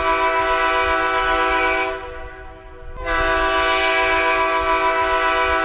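Diesel locomotive air horn sounding a chord of several steady tones in two long blasts: the first ends about two seconds in, and after a pause of about a second the second starts and holds. Two long blasts are the railroad signal to release the brakes and proceed.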